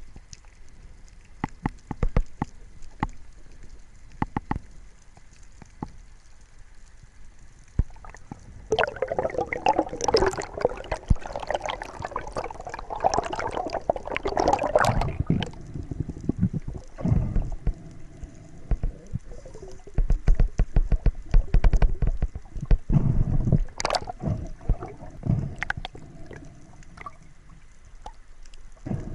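Seawater gurgling and sloshing around a snorkeler, with scattered sharp clicks and knocks. A busier stretch of splashing and gurgling runs through the middle.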